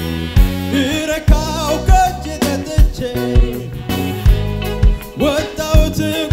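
Live gospel worship band: a male vocalist sings a wavering melody into a handheld microphone over electric guitar, bass and a drum kit, with a steady kick-drum beat about every two-thirds of a second. The voice comes in about a second in.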